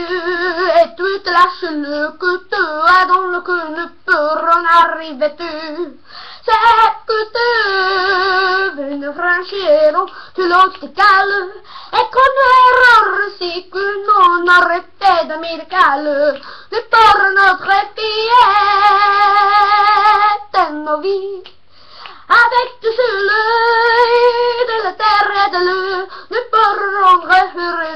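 A boy singing a French love song in a high voice, with two long held notes that waver with vibrato, one about a quarter of the way in and one past the middle.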